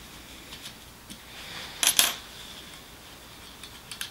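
Small metallic clicks of a hex key working the blockage-release bolts on the nose of a Parkside electric nailer-stapler, with a short metal clatter about two seconds in, the loudest sound.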